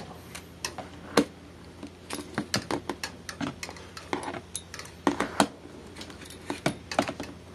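Irregular light clicks, clacks and knocks, a dozen or more scattered through, from a handheld tool being worked inside a cat cage to tuck in a blanket.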